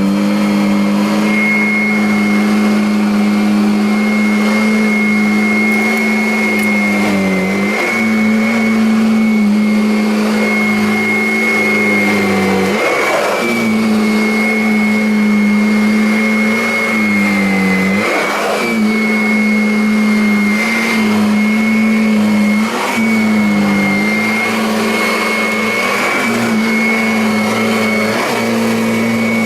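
Kirby Avalir upright vacuum cleaner running on carpet: a steady motor hum with a high fan whine, the pitch sagging briefly every few seconds.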